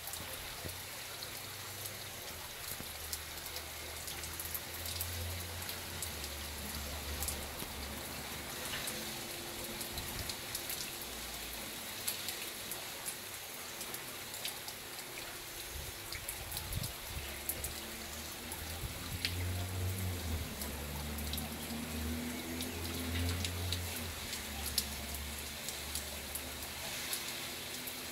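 Water sprayed from a garden hose falling like rain through a wire-mesh aviary: a steady hiss with many small drops pattering on the perches and the bird, over a low rumble that comes and goes.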